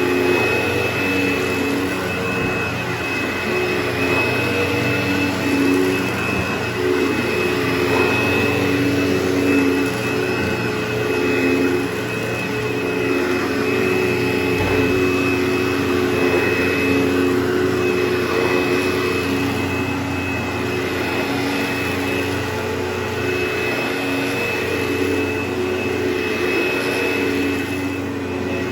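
Vacuum cleaner motor running steadily, a constant drone with a few held tones and no change in pitch.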